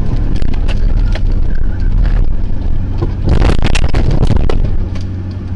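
Heavy rumbling and crunching inside a car as it slides through snow, with repeated sharp knocks and scrapes that are loudest between about three and four and a half seconds. Near the end it eases to a lower, steadier rumble.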